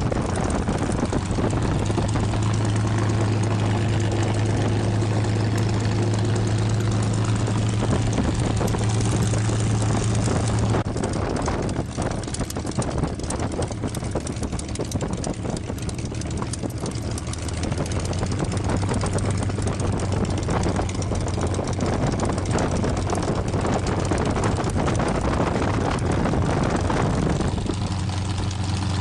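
The Packard Merlin V-12 of a 1945 P-51 Mustang running steadily at low taxi power, heard from inside the cockpit behind the spinning propeller. The engine note eases about eleven seconds in and picks up again a few seconds later.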